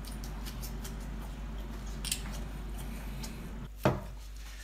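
Close-up eating sounds: wet mouth clicks and smacks while chewing king crab leg meat, with one sharp thump near the end.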